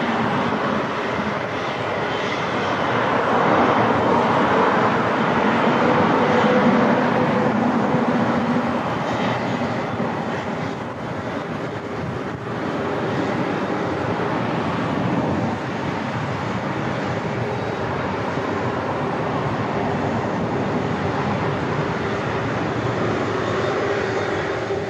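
Passenger jet airliner engines running, a steady rushing noise that swells to its loudest a few seconds in, eases off, then holds steady, with a faint humming tone in it.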